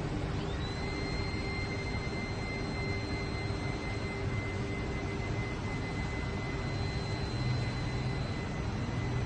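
Steady rushing vehicle and road noise, with a high-pitched whine that glides up under a second in and then holds steady.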